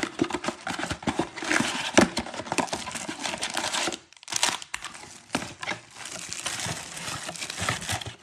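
Plastic shrink wrap crinkling and tearing as it is stripped off a cardboard trading-card blaster box, loudest for the first four seconds. This is followed by quieter rustling as the box flaps are opened.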